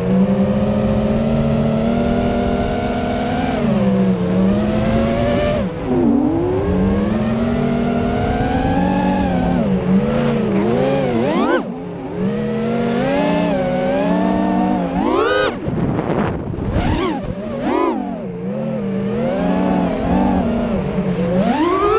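Quadcopter's electric motors whining as it flies, the pitch rising and falling constantly with the throttle, with several sharp climbs in pitch where the throttle is punched.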